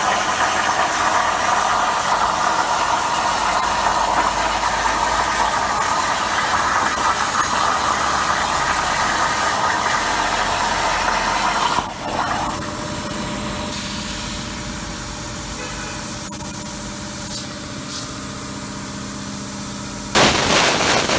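CNC plasma cutter torch hissing steadily while cutting metal. About halfway through the hiss cuts off, leaving a quieter steady machine hum with a few steady tones. Near the end comes a loud hiss about a second long.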